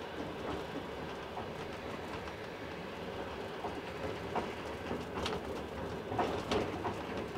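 Moving passenger train heard from inside the carriage: a steady running rumble, with a few sharp clacks of the wheels over rail joints in the second half.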